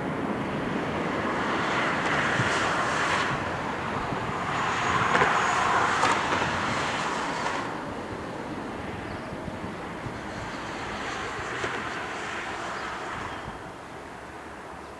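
Jet noise from a twin-engine airliner's engines on final approach, swelling over the first several seconds and then fading as the aircraft moves away, with wind buffeting the microphone.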